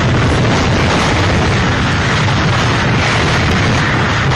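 Hurricane Irma's wind buffeting a microphone: a loud, steady roar of wind noise with a heavy low rumble.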